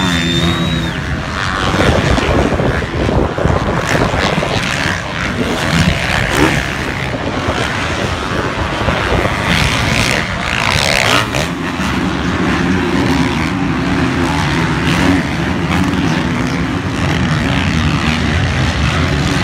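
Motocross bikes racing on a dirt track, engines revving hard and changing pitch as they pass, with steadier engine tones in the second half.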